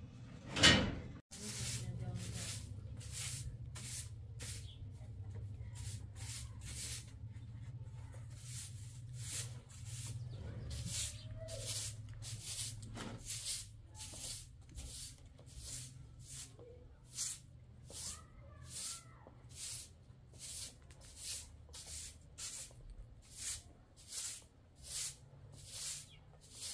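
A dog's rapid, hissing breaths, close to two a second and even in rhythm: the laboured breathing of a dog with an incurable disease. A low steady hum lies underneath, and there is a single knock about half a second in.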